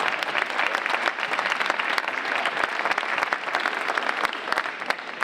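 Audience of schoolchildren applauding: a burst of dense clapping that rises just before, holds steady, and fades out shortly after.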